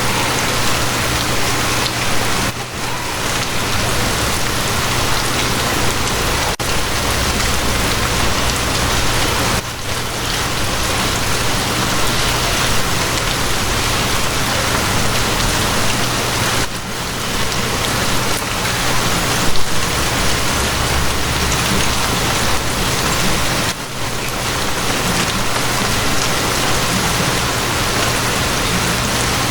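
Steady heavy rain falling on a surface, an even hiss with a low steady hum underneath. It dips briefly about every seven seconds.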